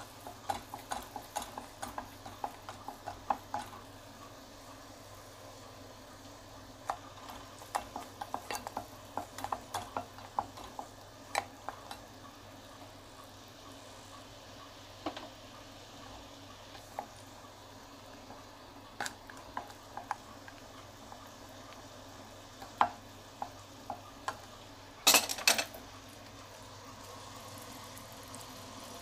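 Wooden spatula stirring melting sugar in a glass saucepan as it turns to caramel, in irregular clusters of light knocks and scrapes against the glass over a faint steady hiss. A brief louder clatter comes near the end.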